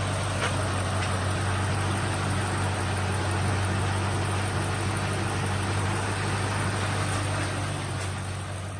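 2003 Ford Mustang SVT Cobra's supercharged 4.6-litre V8 idling steadily.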